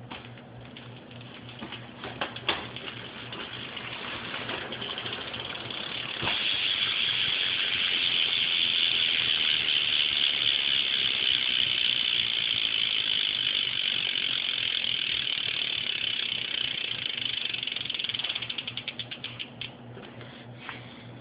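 BMX rear hub's freewheel pawls ratcheting as the wheel spins: a few scattered clicks at first, then about six seconds in a loud, fast buzz of clicks that runs steadily for some twelve seconds. Near the end it breaks into separate ticks that slow down and stop as the wheel coasts to rest.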